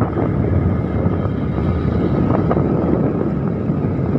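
Motorcycle engine running steadily while riding along the road, mixed with a constant rush of wind over the microphone.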